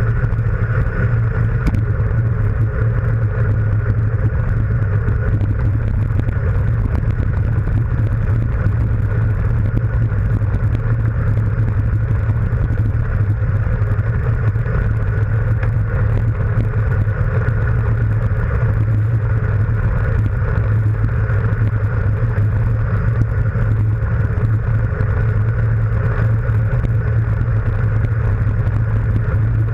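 Steady, loud wind rush buffeting a handlebar-mounted GoPro's microphone as a road bike descends fast.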